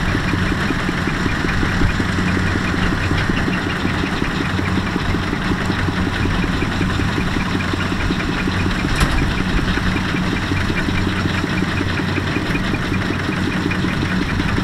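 Single-cylinder diesel engine of a Kubota ZT155 walking tractor idling steadily at an even, constant speed, with its knocking diesel beat.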